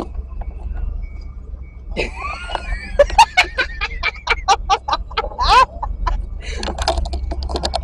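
People's voices and laughter over a steady low rumble; the voices start about two seconds in.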